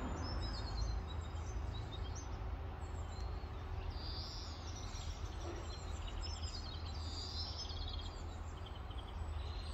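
Small songbirds chirping and twittering in quick high phrases, on and off, over a steady low rumble in the background.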